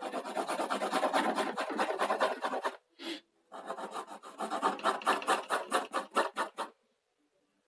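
Graphite pencil shading on drawing paper: quick back-and-forth strokes, about five or six a second, in two runs with a short break about three seconds in, stopping shortly before the end.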